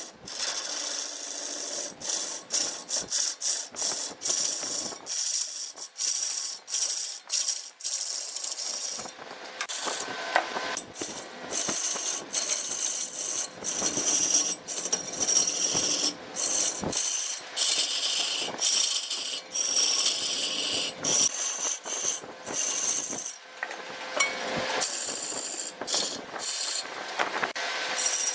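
Wood being cut on a lathe: a turning tool scraping against the spinning wood in rapid, irregular strokes, with a harsh, hissing rasp and frequent short breaks.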